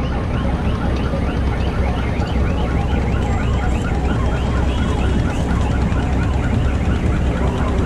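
The river vehicle ferry's engine runs as a steady low rumble. Over it, a repeating electronic chirp sounds about three times a second, like a vehicle alarm.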